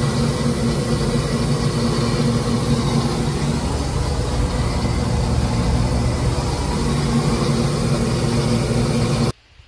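Combine harvester's engine and machinery running steadily with a constant, even drone. It cuts off abruptly near the end.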